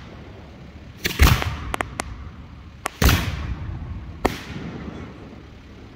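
Hand-fired 3- and 4-inch aerial firework shells going off in a series of booms and sharp cracks. The loudest come about a second in and just after three seconds, the second one trailing off in an echo, and one more boom follows a second later.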